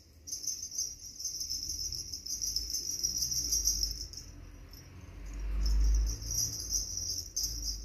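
A steady, high-pitched trill that breaks off for about a second past the middle, with a low rumble swelling and fading around six seconds in.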